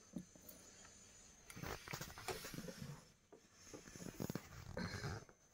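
Faint handling noise: light rustling and small taps from LEGO sticker sheets being handled, coming in a few short spells.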